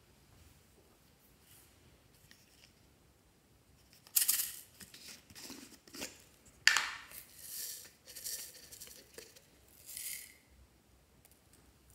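Small plastic containers of glitter and star sequins being opened and handled, with glitter tipped out. It comes as several short bursts of crinkly rustling, starting about four seconds in.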